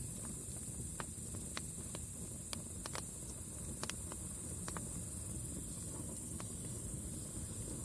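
Campfire crackling: sharp, irregular pops and snaps of burning wood over a low, steady rustle of the flames, with a steady high-pitched hiss behind.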